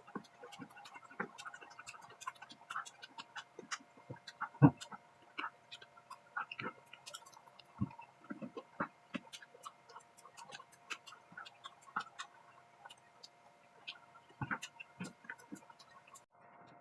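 Eating sounds: irregular small clicks and knocks of a spoon on a plate, with one sharper knock about five seconds in, over a faint steady hum.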